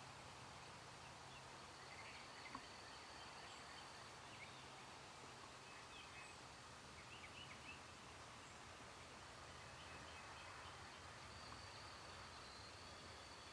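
Quiet outdoor ambience with scattered faint, short bird chirps in the distance and a thin steady high tone.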